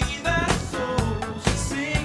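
Upbeat funk-style background music with a steady beat and a melody line.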